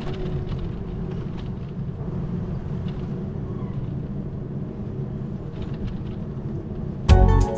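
Steady low rumble of city street traffic, with a few faint clicks. About seven seconds in, louder music with guitar and drums cuts in over it.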